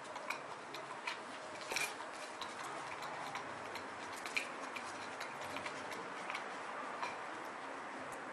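Irregular light clicks and taps from homemade nunchaku being swung and caught, the sticks knocking against each other and the hand, over a steady faint hiss.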